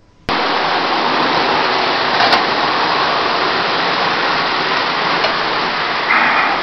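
Lionel O-gauge electric toy trains running on three-rail track: a steady rolling rumble of wheels and motors. There is a single click about two seconds in, and the noise rises briefly near the end.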